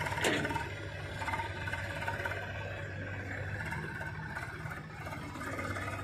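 Farm tractor's diesel engine running steadily as it pulls a trolley loaded with mud, with one brief sharp knock about a quarter second in.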